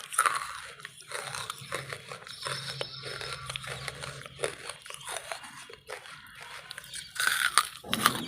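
Close-up biting and chewing of wood charcoal: a run of crisp crunches and grinding chews, with loud bites at the start and again near the end.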